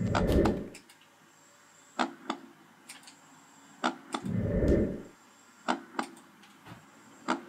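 Camera being handled and moved: two dull, muffled rumbles about half a second long, one at the start and one about four seconds in, with scattered light clicks and taps between them.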